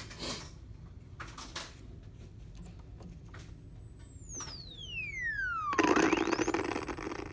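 Korg MS-20 analog synthesizer playing a dive-bomber effect: a high whistling tone holds, then falls steadily in pitch for about two seconds. A loud explosion-like noise burst follows, while the tone glides quickly back up to its high pitch.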